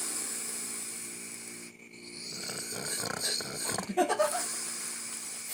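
A sleeping person snoring: two long noisy breaths with a short pause between them, and a few brief pitched snorts about four seconds in.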